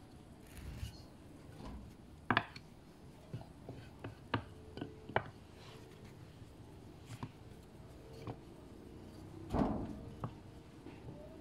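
Wooden rolling pin rolling out soft yeast dough on a floured metal baking tray, with irregular light knocks and taps as the pin and the handled dough meet the tray. The louder knocks come a little over two seconds in and near the end.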